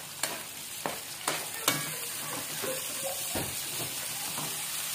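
Chopped tomatoes sizzling in hot oil in a metal wok while a metal ladle stirs and scrapes them, with a few sharp taps against the wok in the first two seconds.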